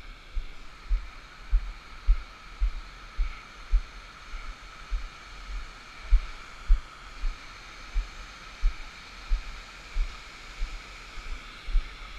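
Deep thumps a little under two a second, footsteps jolting the action camera as its wearer walks over granite slabs, over a steady, faint rush of stream water.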